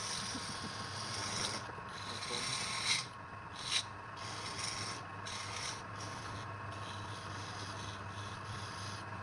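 Wood lathe running with a steady hum while a turning tool or abrasive is held against the spinning wood. This gives a rasping hiss that breaks off in several short gaps.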